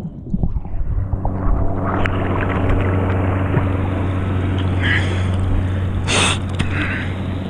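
Muffled water sloshing and gurgling around a camera in the lake just after a wakeboarder's fall, over a steady low hum. One sharp splash comes about six seconds in.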